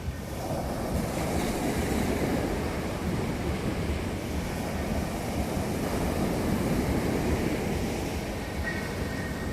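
Sea waves breaking and washing onto the shore, a continuous rushing surf that swells slightly about half a second in.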